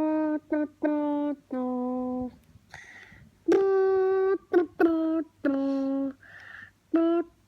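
A person humming a fanfare-style theme tune on 'dun' syllables. It is a run of held notes with quick short pickups in between, and short breaths between the phrases.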